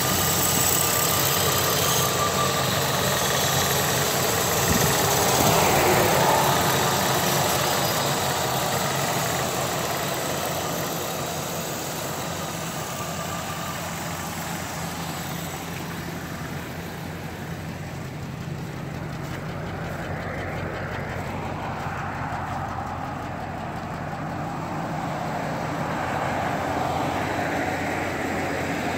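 1979 Lincoln Mark V's 400 cubic-inch V8 idling steadily, a little quieter through the middle stretch. A single thump comes about five seconds in.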